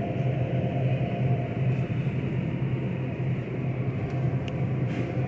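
Steady low hum of supermarket refrigeration, the open chilled meat case and store air handling, with a faint tick or two of plastic-wrapped meat trays being handled.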